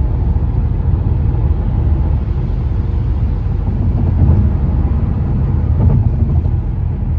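Steady low rumble of a car driving on the road: tyre, road and engine noise.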